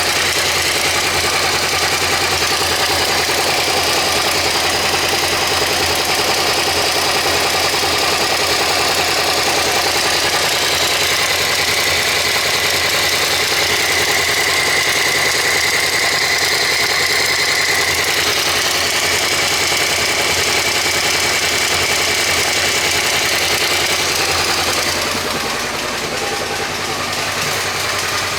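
Suzuki SV400 V-twin engine idling steadily, with an occasional dry snapping click from the front cylinder, like a flicked card, that grows louder as the engine warms: the sign of a stretched front-bank cam chain. The sound goes slightly quieter and duller near the end.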